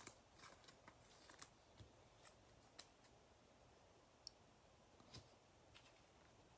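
Near silence with faint, scattered clicks and soft rustles of trading cards being handled and set down on a table.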